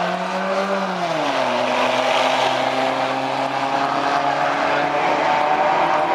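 Two drag-race cars at full throttle, one a stock 2011 Chevrolet Camaro SS with its V8, pulling down the strip. The engine pitch climbs, drops sharply with a gear change about a second in, then climbs slowly again.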